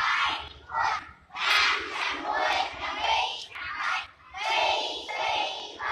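Large group of schoolchildren shouting in unison during group exercise, a string of short loud calls in a steady beat.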